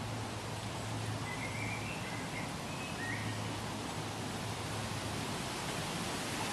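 Woodland ambience: a steady even hiss with a faint low hum underneath, and a few short, high bird chirps between about one and three seconds in.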